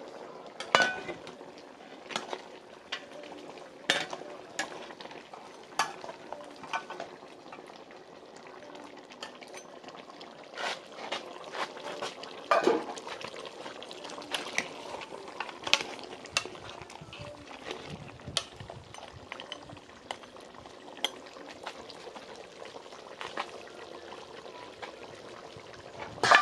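A pot of curry goat cooking while a utensil stirs and knocks against the pot in irregular sharp clicks, over a steady cooking noise.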